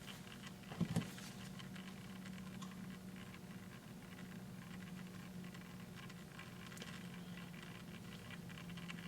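Faint room tone: a steady low hum with light scattered taps and scratches, and one louder knock about a second in.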